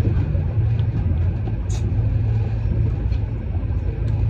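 Steady low rumble of a motor vehicle running, with a short click about two seconds in.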